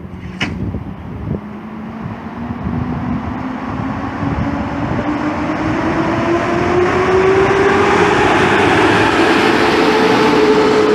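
Electric train pulling through the station and picking up speed, its traction motors giving a whine that rises steadily in pitch as the train grows louder. A few wheel clicks and a sharp metallic clank come right at the start.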